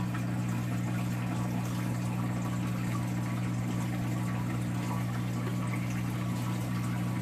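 Saltwater aquarium's pumps humming steadily, with a constant wash of circulating water.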